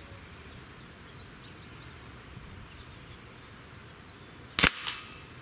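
Gamo Hunter 220 .177 breakbarrel spring-piston air rifle fired once: a single sharp crack about four and a half seconds in, after a few seconds of quiet.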